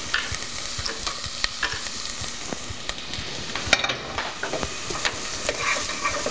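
Chopped onion and green pepper sizzling in bacon grease in a frying pan while being stirred, with frequent sharp clicks and scrapes of the utensil against the pan.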